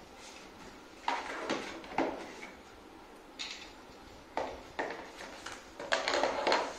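Hard plastic and metal parts of a toddler tricycle clunking and knocking as they are handled, detached and set down, a series of separate knocks with a busier run of them near the end.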